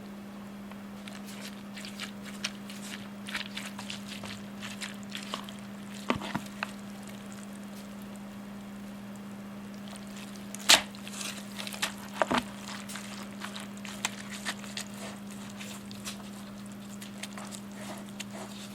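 Humidifier filters handled in a container of bleach and water: scattered clicks and knocks, with one louder knock about eleven seconds in, over a steady low hum.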